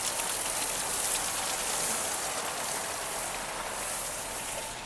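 Water spraying and splattering steadily onto the wet floor of a concrete fish-tank basin as it is being cleaned.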